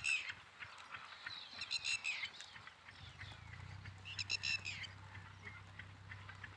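Birds calling: three short high calls about two seconds apart, each sliding slightly down in pitch, over scattered small chirps and ticks. A faint low steady hum comes in about three seconds in.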